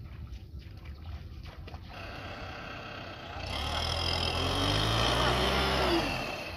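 Tractor diesel engine running low, then revving harder about three seconds in, its pitch climbing and the sound growing louder before it eases off near the end.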